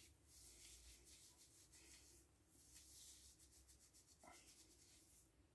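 Faint soft rubbing and rustling of plastic-gloved hands gathering up dye-soaked hair, over near-silent room tone.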